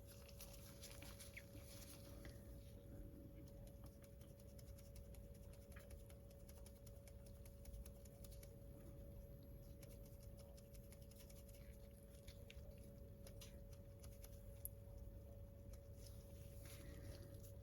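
Near silence: room tone with a faint steady hum and scattered faint light clicks.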